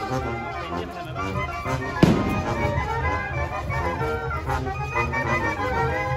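A band plays a festive tune. A single sharp firework bang about two seconds in is the loudest sound, with a short echo after it.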